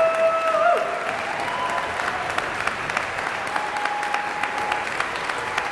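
A large concert audience applauding, with dense, steady clapping. Over it, a held cheering call rises out of the crowd at the start, and another comes about halfway through.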